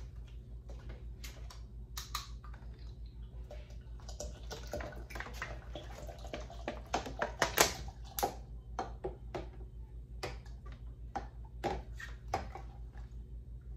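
Water poured from a plastic bottle into a large glass jar of chopped fruit, with the bottle crackling and clicking as it is handled; later a long metal spoon stirs the fruit, knocking against the glass.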